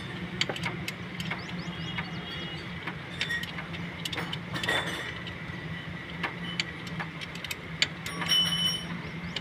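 Irregular metallic clicks and taps of a hand tool working on a fastener at a Suzuki Cultus's starter motor, over a steady low hum.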